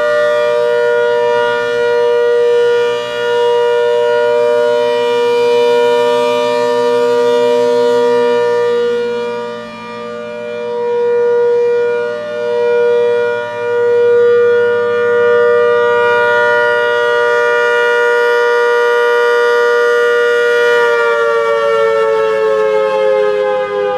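ACA Hurricane 130 MKII outdoor warning siren sounding a loud, steady Alert tone, its loudness dipping now and then. About three quarters of the way through, the alert signal is stopped and the pitch starts to fall as the siren winds down.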